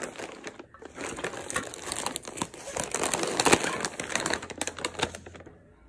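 Plastic chips packet (Bingo! Mad Angles) crinkling and crackling as it is handled and lifted, in irregular bursts that stop about five and a half seconds in.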